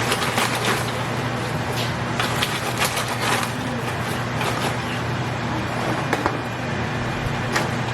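Popcorn being tipped into a pot of melted marshmallow and stirred: irregular light rustling and clicks over a steady low hum.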